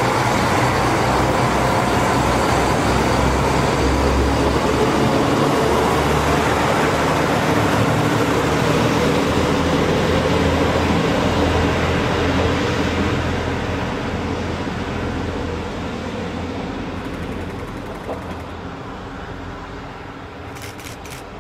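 KiHa 66 series diesel railcar passing close by, its diesel engine droning low along with the running noise of the train, then fading steadily from about halfway through as it moves away down the line.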